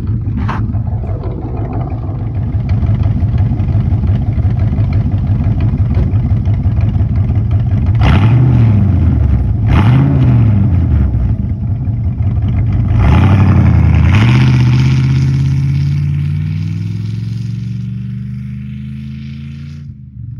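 Ford 302 Windsor V8 running through a homemade twin exhaust. It is blipped twice in quick succession about eight and ten seconds in, then revved once more and left to wind down slowly.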